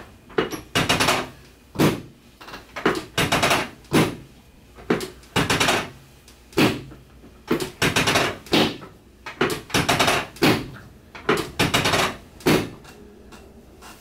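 Chiropractic drop table knocking down again and again under quick hand thrusts on the lower back. A loud knock comes every half second to a second, some drawn out into a short clatter.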